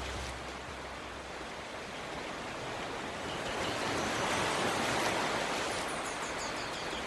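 A steady rushing noise with no tone in it, swelling about four seconds in and easing a little near the end.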